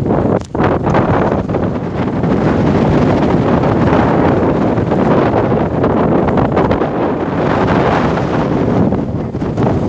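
Strong wind buffeting the microphone on a yacht under sail: a loud, steady rushing rumble that dips briefly about half a second in.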